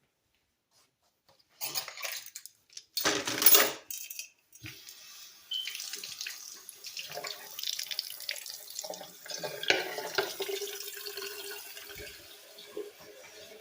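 Water running from a tap into a kitchen sink as a coffee maker part is rinsed under it, with knocks and clatter. It starts after a second and a half of silence, with a loud splashing burst about three seconds in, then runs steadily.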